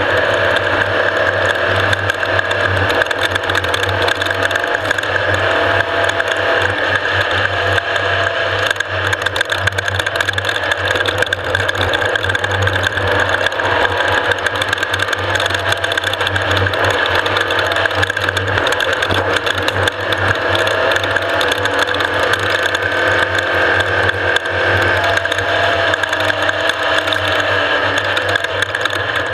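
Off-road race vehicle under way, heard on board: a loud, steady mix of engine and drivetrain noise with fast, continuous mechanical rattling.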